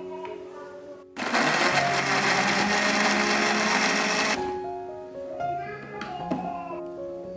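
Small electric blender running for about three seconds, grinding chilies, shallots and spices with a little water into a paste. It starts about a second in and cuts off suddenly, over steady background music.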